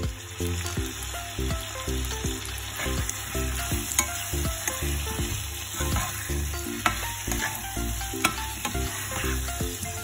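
Raw chicken wings sizzling in hot oil in a non-stick frying pan while a metal spoon stirs them, with a few sharp knocks of the spoon against the pan.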